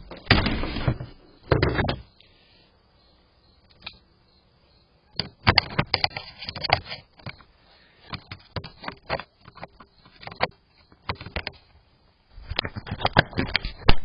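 Irregular bursts of clicks, knocks and rustling, heard through a video doorbell's microphone.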